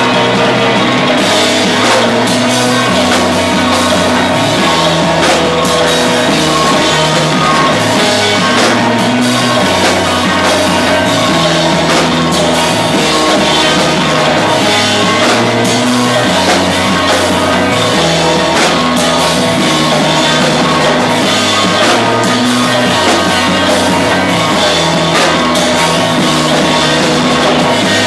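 Rock band playing live and loud: electric guitars, a bass line moving between notes, and a drum kit with cymbals.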